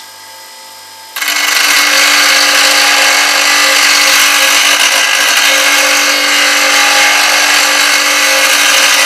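Bench grinder's white aluminium oxide wheel grinding the steel tip of a bowl gouge held in a fingernail jig, sharpening its bevel. About a second in, the tool meets the wheel and a loud, steady grinding hiss starts, with a steady hum under it.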